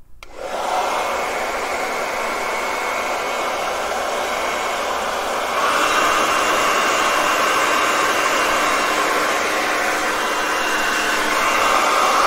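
InfinitiPRO hair dryer switching on and running with its nozzle removed: a steady rushing blow with a faint whine, which gets louder about six seconds in.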